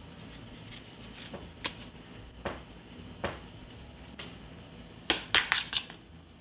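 Light clicks and taps of hands working samosa pastry wrappers on a wooden cutting board while brushing on flour paste and folding them. A quick run of four or five sharper clicks comes about five seconds in.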